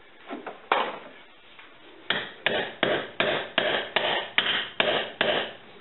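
Hammer blows on metal: a single blow, then after a pause a run of about nine even blows, roughly two and a half a second, each with a short ring.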